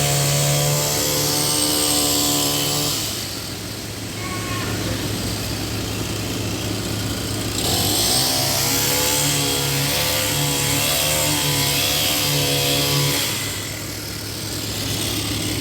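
A heavy engine at a concrete pour, revving up twice: for about three seconds at the start and again for about five seconds from around 8 seconds in. Between the revs it drops back to a lower, steady running note.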